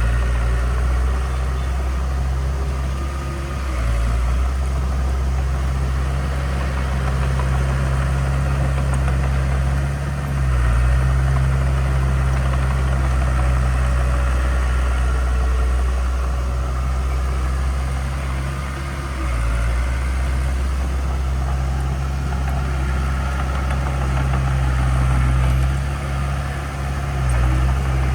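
Diesel engine of heavy construction equipment running steadily with a deep, even note that shifts briefly a few times.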